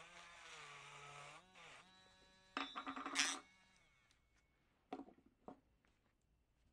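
Small handheld rotary tool (KENOH Router Master 2) running with a steady whine, its bit cleaning the rusty metal burner ring of a Coleman 508A gasoline stove; the pitch dips under load about a second and a half in. A short, louder burst of grinding comes near the middle, followed by a couple of light clicks.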